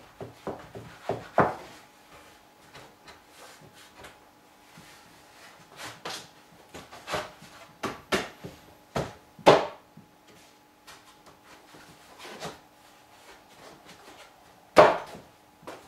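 Wooden cladding boards being handled and pushed into place on a wooden door frame: scattered wood-on-wood knocks and rubbing, with loud knocks about halfway through and near the end. The board seats with a slightly tight fit.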